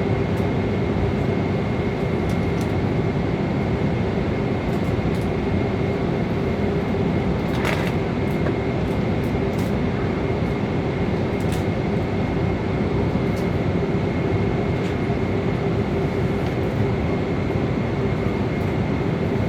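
Airliner passenger-cabin noise: a steady rush of engine and airflow with a constant low hum and a faint higher tone. A few faint clicks sound over it, one a little before the middle.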